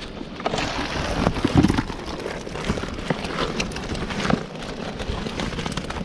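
Wet gill net and caught fish being handled over plastic buckets: irregular rustling, soft slaps and knocks, loudest about one and a half seconds in, with wind buffeting the microphone.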